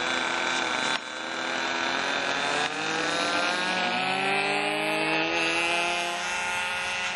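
Engines of two radio-controlled trainer airplanes running together, their pitch rising from about three seconds in as they throttle up for takeoff.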